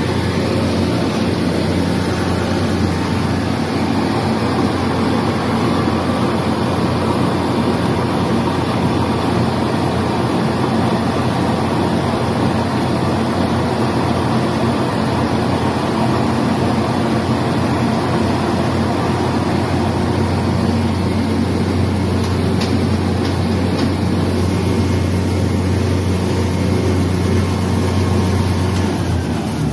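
Shin Nong rice mill machine running while milling rice: a loud, steady machine noise with a strong low drone from its 3.3 hp single-phase electric motor and milling drums.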